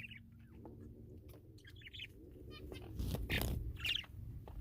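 Pet birds chirping: a handful of short high calls, spaced about a second apart, with a louder call around three and a half seconds in.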